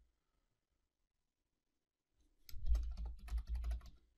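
Typing on a computer keyboard: a quick run of keystrokes starting about halfway through.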